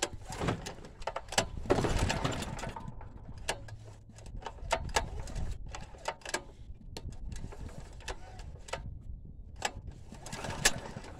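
A choked Honda GX390 single-cylinder engine being pull-started by its recoil rope, turning over in the first couple of seconds without catching. Scattered sharp clicks and knocks follow.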